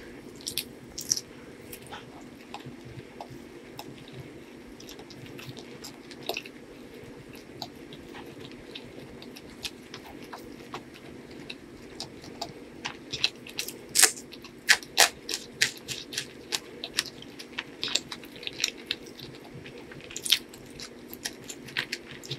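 Close-miked eating of chicken liver and gizzard curry with rice, green chilli and onion: wet chewing with sharp crunchy clicks, coming thicker in the second half. A steady low hum runs underneath.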